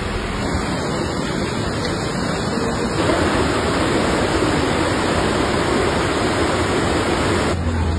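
Steady rushing of a swollen, muddy river in flood, louder from about three seconds in.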